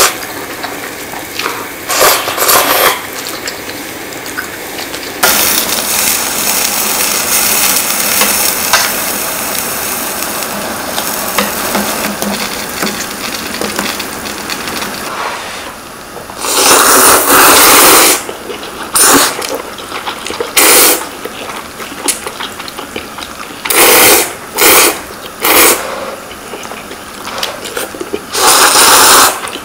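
Instant ramen noodles slurped from bowls in several loud bursts of half a second to two seconds, the longest about halfway through and another near the end. Earlier, a steady hiss of broth boiling in the pot.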